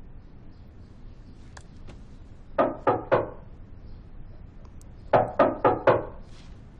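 Knocking on a door: three quick knocks, then a pause of about two seconds, then four more knocks.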